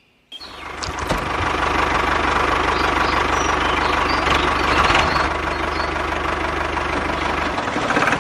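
A small engine running steadily, starting abruptly about half a second in after a cut, with a continuous rattling, knocking quality.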